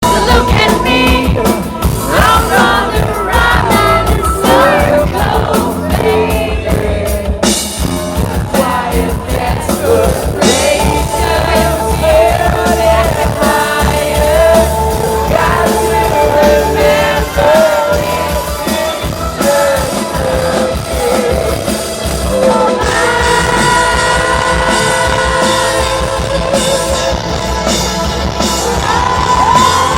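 Rock band playing a song at a sound check: a singer over drums and amplified instruments. The singing holds longer notes in the last third.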